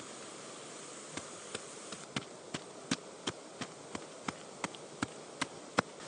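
A metal-bladed hand digging tool chopping into loose soil in quick repeated strikes, about three a second, starting about a second in, over a steady hiss.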